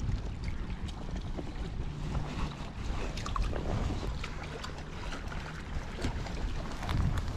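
Wind rumbling on the microphone, with scattered light clicks and taps.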